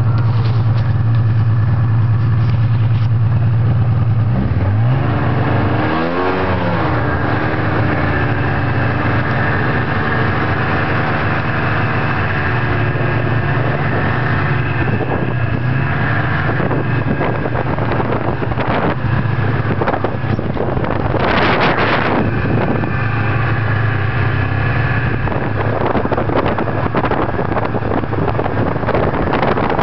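Snowmobile engine running under way, heard from the rider's seat. Its pitch climbs as it revs up about five seconds in, wavers briefly, then holds a steady drone. There is a short, louder rush of noise about three-quarters through.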